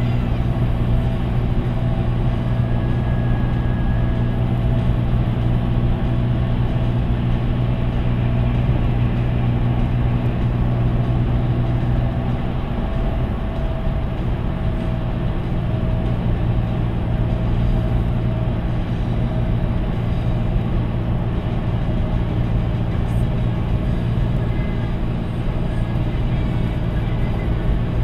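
Steady engine drone and road noise heard from inside a vehicle's cabin at freeway cruising speed; the engine hum shifts in pitch about twelve seconds in.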